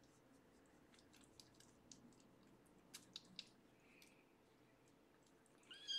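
Faint soft clicks and rustles as a young tabby kitten is handled, then near the end one short, high kitten mew.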